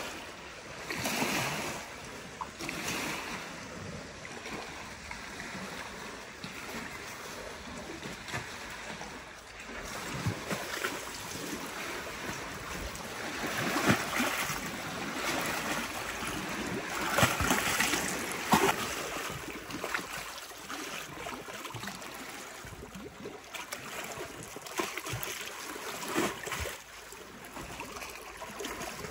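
Small lake waves lapping and splashing against stone steps at the water's edge, coming in irregular surges, with the loudest splashes around the middle.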